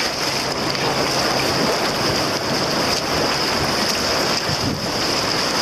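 Rushing river rapids churning around a tandem kayak as it runs through whitewater, with paddle strokes splashing. Wind buffets the microphone.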